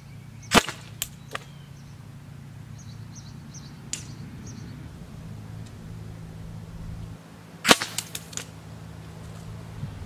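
Pneumatic line launcher firing twice, about seven seconds apart: each shot a sharp pop followed by a few quick clicks, over a steady low hum.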